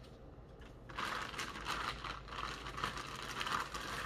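Plastic bag around a laptop charger crinkling and rustling as it is handled in the hands, starting about a second in.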